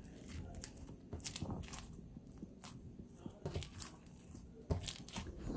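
Slime being squished and pulled by hand, making irregular sticky clicks and crackles, with a few louder pops near the middle and near the end.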